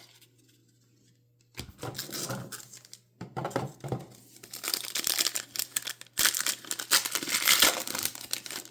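A trading-card pack wrapper being torn open and crinkled by hand. It starts about a second and a half in and goes on with short pauses.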